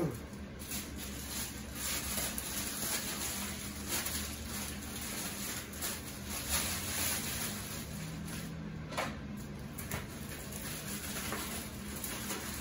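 Plastic bag rustling and crinkling as it is handled, with scattered small knocks and clatter of kitchen handling.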